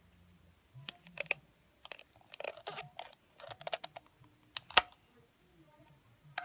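Plastic toy shark's jaws clicking as it bites at food. The clicks and crackles come in quick, irregular bunches, with the sharpest click just under five seconds in.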